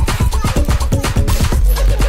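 Electronic dance music with a steady, fast beat.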